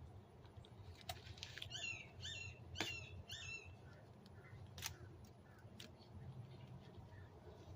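A small bird chirping four quick times, each chirp a short falling note, with a few faint clicks and taps around it.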